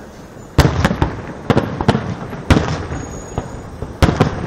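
Aerial fireworks shells bursting: a series of sharp bangs, the loudest about half a second, one and a half, two and a half and four seconds in, with smaller pops between.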